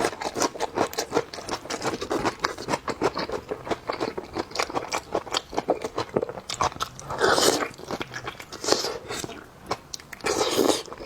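Close-up eating sounds of a person chewing and biting beef tendon: rapid wet smacks and crunchy clicks, with two longer, louder noisy sounds about seven and ten seconds in.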